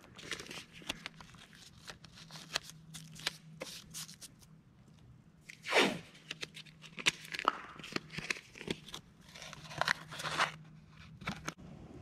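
Blue painter's tape being pulled off the roll, torn and pressed down in strips, with crackling and crinkling. One long, loud rip about six seconds in falls in pitch.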